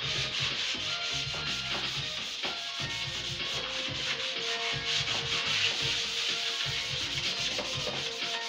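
Hand sanding of bare wood: sandpaper rubbed back and forth over the cabinet's unfinished wooden surfaces, a continuous scratchy rubbing.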